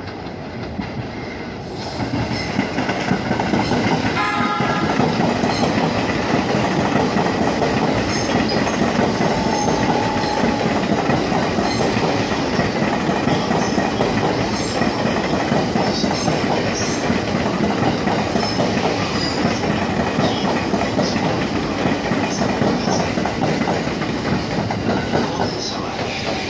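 E231 series 800 electric commuter train running past close by, its wheels clattering steadily over the rail joints. A short high tone sounds about four seconds in.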